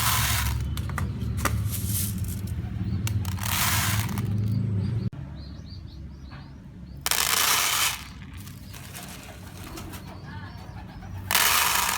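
Domestic pigeons cooing, with four loud bursts of rustling noise, each about a second long.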